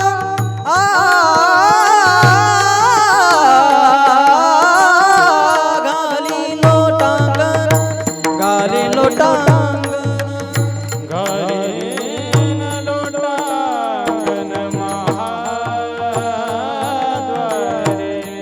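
Kirtan devotional music: a voice singing a long, wordless, ornamented melodic line with gliding pitch, over deep hand-drum strokes.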